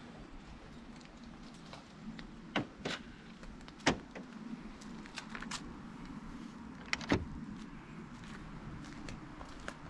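A handful of sharp knocks and clicks, the loudest about four seconds in and another pair around seven seconds, over a steady low hum.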